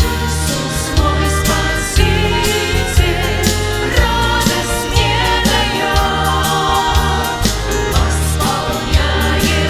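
A live worship song: a small mixed group of men's and women's voices singing together over a band of strings, flute, keyboard, guitars and drums, with a steady beat about once a second.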